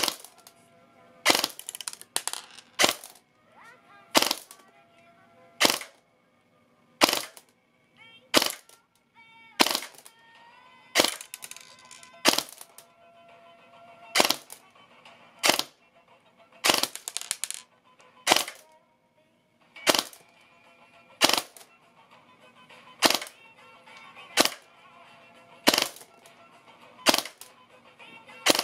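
Airsoft M249 electric gun (AEG), fitted with a 3D-printed test air nozzle, firing single shots into a chronograph: a sharp crack about every second and a half, some twenty in all. Faint music plays underneath between the shots.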